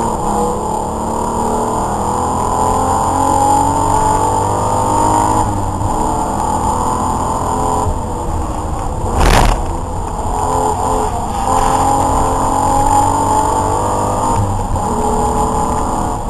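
Race car engine heard from inside the cabin under hard acceleration, its note climbing and dropping back about five and eight seconds in and again near the end. A brief loud thump about nine seconds in.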